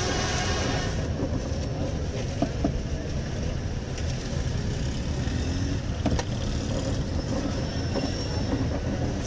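Steady low background rumble at a street-food stall, with a few light clicks and knocks as fried chips are handled and served onto paper plates.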